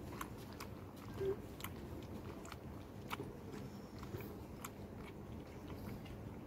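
Puppy lapping milk from a plastic cup held for it: faint, irregular wet clicks and smacks of its tongue.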